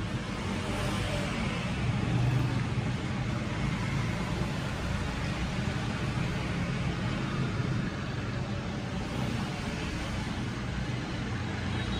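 Steady background rumble of road traffic, with a low hum and no distinct events.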